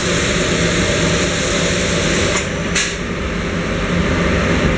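Aggregate hopper spray gun and its compressed-air supply: a steady rush of air over a low machine hum, with two short blasts of hiss about two and a half seconds in as the gun is triggered.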